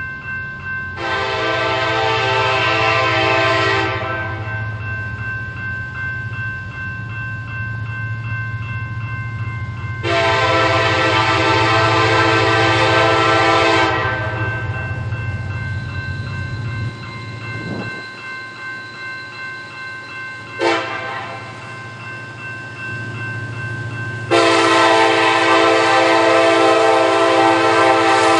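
Norfolk Southern diesel locomotive's air horn sounding the grade-crossing signal as the train approaches: two long blasts, a short one, then a final long blast that is still sounding at the end.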